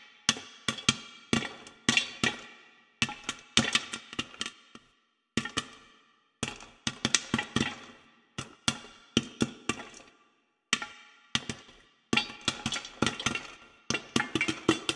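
Percussive soundtrack of sharp, wood-block-like knocks and pops in quick irregular clusters, each cluster ringing out and broken by short silences every second or two.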